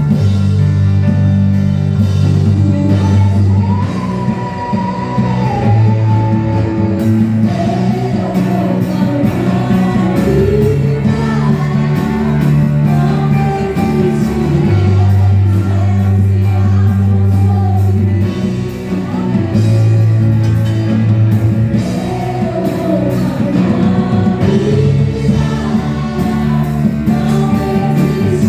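Live worship band playing a song: a lead singer's voice over steady bass notes, electric guitar and keyboard.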